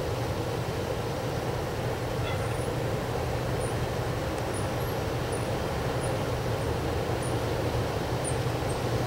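Wind blowing steadily, with a low, even rumble.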